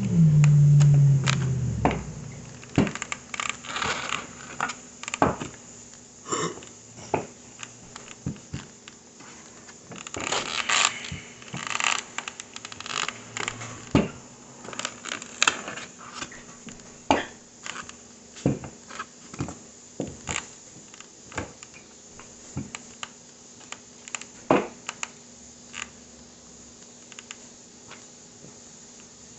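Rolling pin working a small piece of wonton dough thin on a floured countertop: irregular knocks of the pin against the counter with scraping and rubbing strokes in between.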